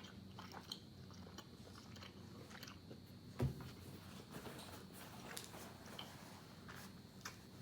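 Close-miked chewing and biting, with small crunches and wet mouth clicks scattered throughout. A single louder short thump comes about three and a half seconds in.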